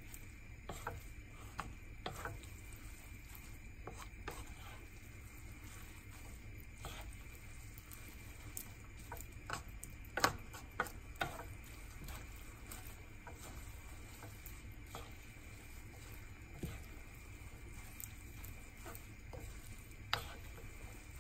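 Wooden spatula stirring and tossing rice-stick noodles and vegetables in a nonstick wok, with irregular scrapes and taps against the pan and a few louder knocks about halfway and one near the end, over a faint sizzle and a steady low hum.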